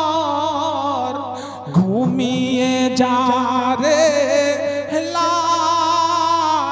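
A man singing a Bangla gojol, an Islamic devotional song, into a microphone, holding long wavering ornamented notes, with a new phrase starting low about two seconds in.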